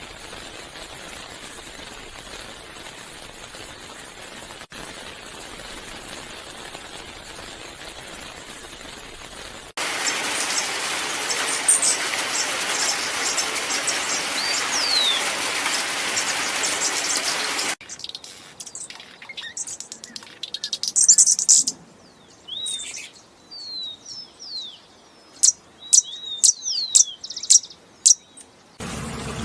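Small birds chirping and calling in several spliced recordings: first a steady hiss of background, then a loud rushing noise with a few chirps over it, then clear, sharp chirps and short falling call notes in quiet surroundings.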